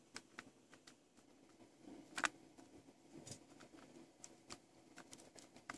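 Faint, scattered small clicks and scrapes as fingers work an LED's wire legs into the power-light socket of an Apple IIe keyboard, the loudest about two seconds in.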